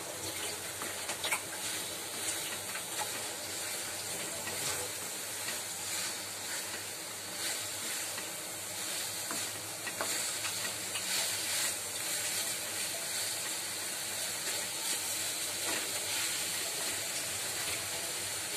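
Potato chunks frying in oil and masala in a metal kadhai over a high flame, sizzling steadily, with the scraping and tapping of a wooden spatula stirring them against the pan.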